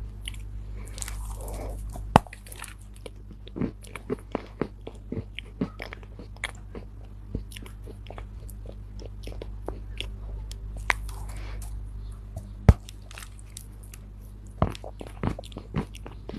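Dried Chinese loess clay being bitten and chewed close to the microphone: scattered crisp crunches, with a sharp loud crack about two seconds in and another at about twelve and a half seconds.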